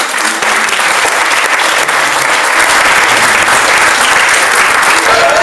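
Crowd of guests applauding, breaking out suddenly and holding steady.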